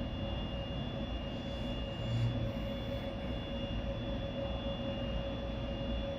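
Steady low rumble with a faint, constant electrical-sounding hum: background noise with no distinct event.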